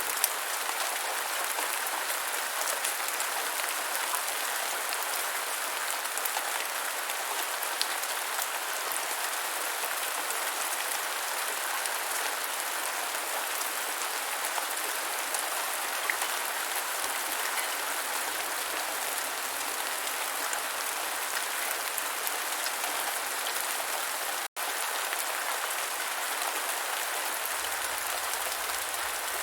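Steady rain falling on the ground: an even hiss of countless small drops. The sound cuts out for an instant about three-quarters of the way through.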